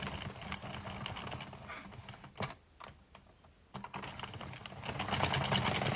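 Hand-cranked plastic circular knitting machine running, its needles and carriage making a rapid clatter of clicks while knitting rounds. The clicking stops for about a second a little before halfway, then starts again and gets louder near the end.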